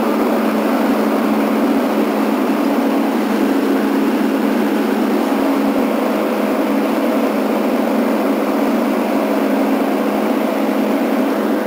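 John Deere D170 lawn tractor's V-twin engine running steadily under load as the tractor drives forward, with its 54-inch mower deck engaged and cutting grass.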